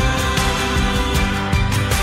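Background music with sustained notes and drum hits.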